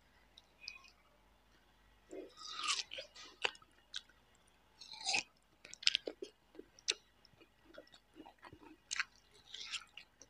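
Close-miked biting and crunchy chewing of a piece of chayote (manisa) dipped in sambal. There are crunchy bites about two seconds in and again around five seconds, then chewing in short irregular clicks.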